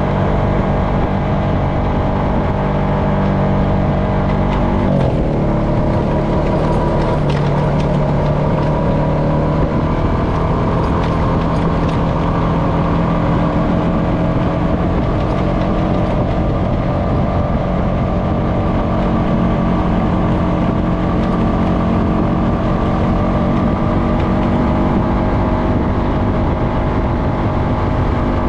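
Honda FourTrax Foreman ATV engine running steadily at trail speed. Its pitch dips briefly about five seconds in, then settles at a steady lower note.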